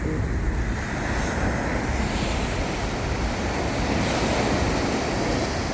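Sea surf breaking on the shore in a steady rush, with wind buffeting the microphone.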